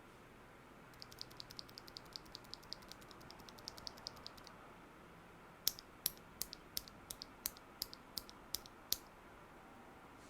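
Gateron Merlot 60 g tactile keyboard switches, lubed with Krytox, pressed on their own without keycaps. A quick run of light clicks comes first, then about ten sharper, louder clacks at roughly three a second.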